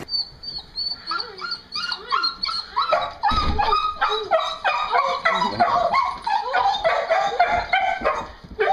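Dog whining and yelping in a rapid run of short, high cries, excited at greeting its owner.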